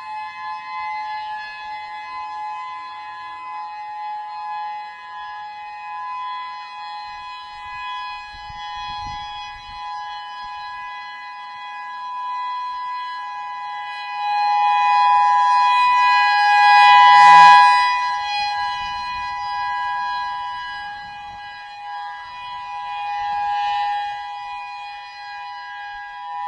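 Civil defence warning siren sounding a steady two-note chord that holds its pitch. It swells louder a little past halfway through, then eases back.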